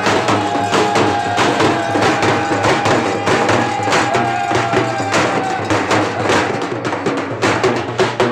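Halgi frame drums beaten fast with sticks in a dense, rapid rhythm, with a single high note held over the first five seconds or so.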